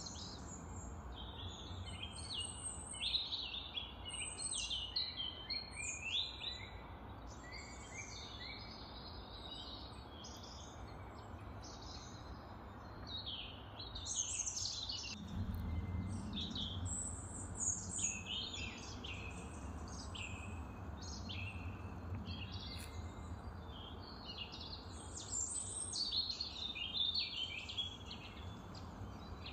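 Birds chirping and twittering, many short calls in quick succession, over a faint low rumble that grows louder about halfway through.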